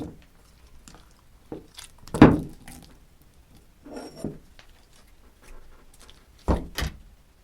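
Slime being squeezed and pressed by hand, making a handful of separate wet squishes, the loudest about two seconds in and two quick ones close together near the end.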